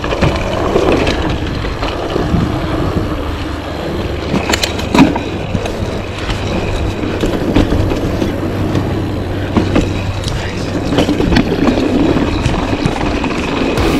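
Kona mountain bike riding along a dirt trail: steady rolling noise from tyres and drivetrain, broken by clattering knocks, the sharpest of them about five seconds in.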